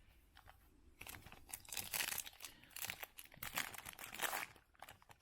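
Foil trading-card pack wrapper crinkling and tearing as it is ripped open, starting about a second in and going on in quick irregular crackles.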